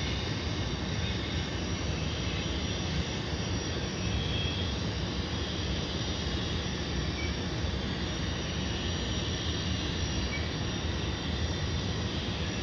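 Model train running: a string of model refrigerator cars rolling steadily along the track, pulled by a model of Union Pacific gas-turbine locomotive No. 18. A continuous rushing noise with a faint high whine, unchanging throughout.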